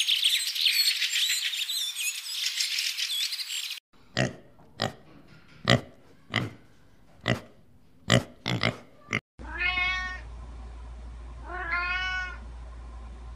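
Three cut-together stretches: first a dense chorus of high chirping calls, then about nine short sharp sounds spaced roughly half a second to a second apart, then a domestic cat meowing twice, two long meows about two seconds apart.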